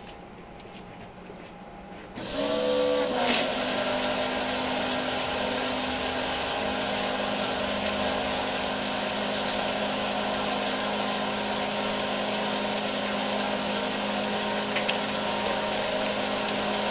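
A small 12-volt electric water pump, run at a low 2-amp setting, switches on about two seconds in with a brief whine as it picks up, and a second later a cone spray nozzle starts hissing steadily as it sprays water, with the pump's hum underneath.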